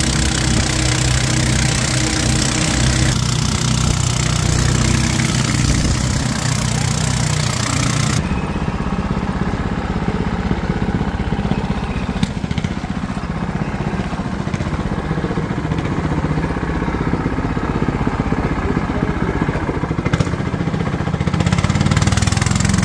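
Stern-mounted motor of a wooden river longboat running steadily under way, a continuous low engine hum. Its sound changes abruptly about three and eight seconds in.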